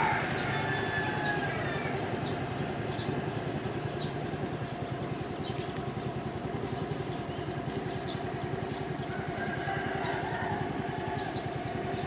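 Small motorbike engine idling nearby, a steady fast even pulse that runs on without change.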